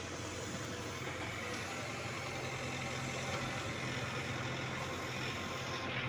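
Heavy-machinery diesel engine running at a steady speed, a low, even drone.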